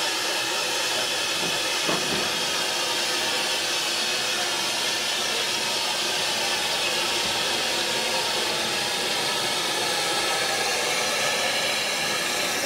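Narrow-gauge steam locomotive Palmerston standing and letting off steam in a steady, loud hiss, with one brief knock about two seconds in.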